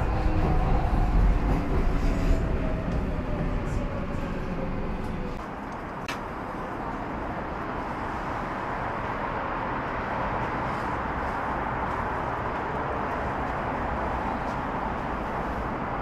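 Docklands Light Railway train running, heard from inside the car: a loud low rumble with a motor whine falling in pitch as it slows. About five seconds in it cuts to a quieter, steady outdoor city hiss.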